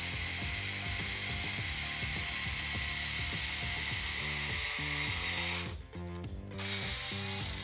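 Small cordless screwdriver with a drill bit running, boring a hole through a plywood spacer, over background music. The drill stops about six seconds in, leaving the music with its steady beat.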